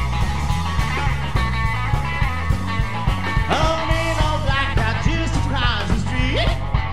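Rockabilly band playing live: a stepping bass line and electric guitar over a steady beat. From about halfway through, sliding, bending high notes come in over it.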